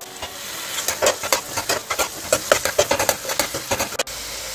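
Stirring chopped colocasia stems and spices in a frying pan: quick, repeated scrapes and knocks of the utensil against the pan, about three or four a second, over a light sizzle. About four seconds in the stirring stops abruptly and a steady sizzle is left.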